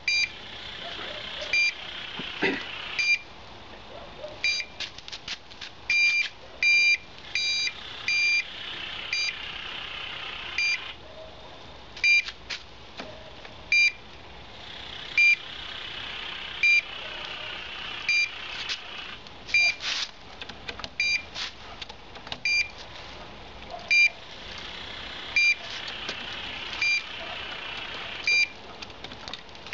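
NPR low-frequency locator beeping in short, high-pitched pips at an irregular one to two a second. The beeps signal that it is picking up the pulsing 22 Hz magnetic field of a PNT-00 pig transmitter sealed inside a steel hydrotest chamber under pressure: the transmitter is still working.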